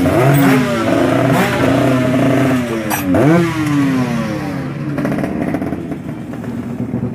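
Drag-race motorcycle engines revving hard up through the gears, several engine notes overlapping, each pitch climbing and then dropping sharply at a shift, about at the start and again about three seconds in. The engine sound fades away after about five seconds.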